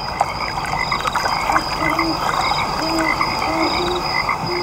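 Frogs croaking: short, repeated calls overlapping one another, over a steady, pulsing high trill and a dense background hiss.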